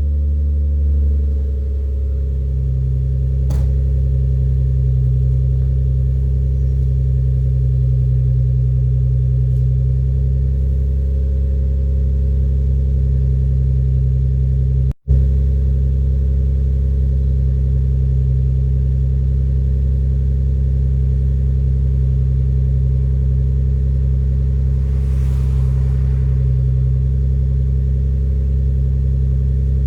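Lexus GS300's exhaust, a full stainless aftermarket system, idling steadily just after a start, with a low, even note. The sound cuts out for a moment about halfway through.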